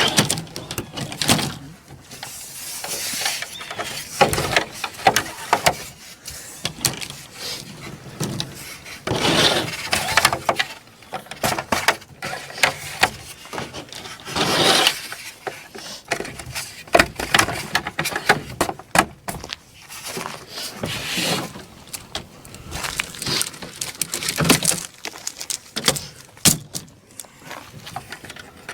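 Irregular knocks, clatter and rubbing of insulated concrete form parts (foam panels and plastic pieces) being stacked and fitted together by hand, with a few longer scraping swishes.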